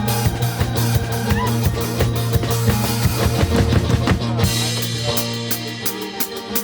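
Music: a bowed kemençe improvising a melody with sliding notes over a drum beat and a sustained low drone. The low drone fades out near the end.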